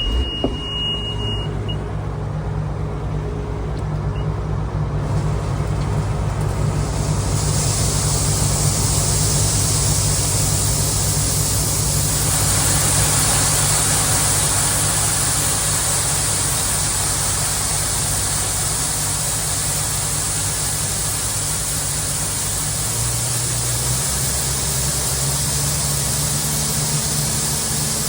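Diesel engine of heavy farm machinery running steadily under load, with a short high beep in the first second or so. A hiss builds in a few seconds in and grows again about twelve seconds in, and the engine note steps up slightly near the end.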